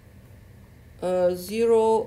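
A voice speaking, starting about a second in, after a quiet stretch of room tone.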